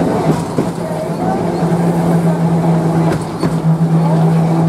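Vintage electric tram running along the line, heard from inside its open wooden car: a steady low hum from the motors and running gear, with a few sharp clicks and knocks from the wheels on the rails, some about half a second in and more after three seconds.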